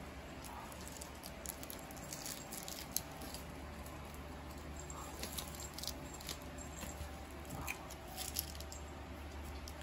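Scattered light clicks and scuffs of a cat's paws and claws on a tiled floor as it spins chasing tape stuck to its tail.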